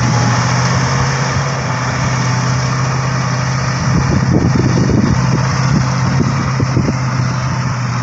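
Heavy diesel truck engine running at a steady, even pitch, with a few irregular low knocks from about four seconds in.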